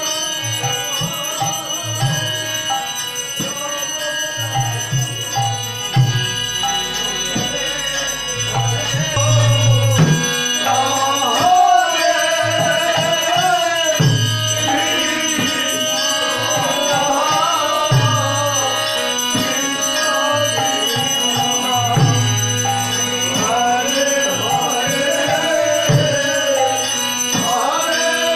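Devotional hymn singing with drum accompaniment beating time. The voices come in more strongly about ten seconds in.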